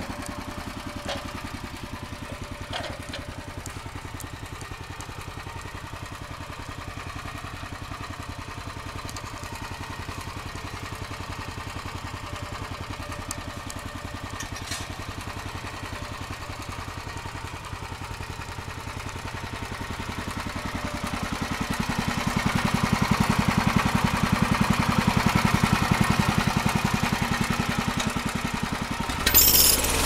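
SMG Champion sawmill's engine running steadily at idle. It grows louder about two-thirds of the way through and eases back, with a sharp clunk just before the end.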